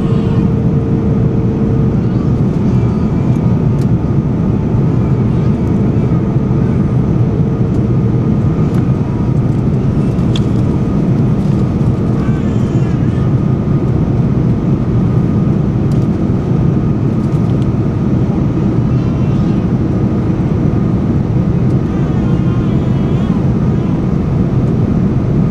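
Steady cabin noise of an airliner in flight: an even, low rush of engines and airflow with a faint steady hum over it.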